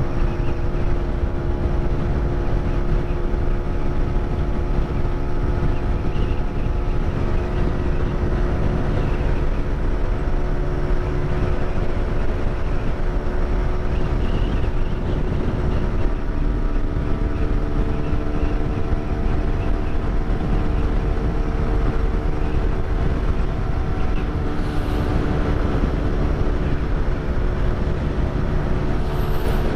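Suzuki 125 motorcycle engine running steadily while riding along the road, its pitch shifting a little now and then with the throttle, over a steady rush of wind noise.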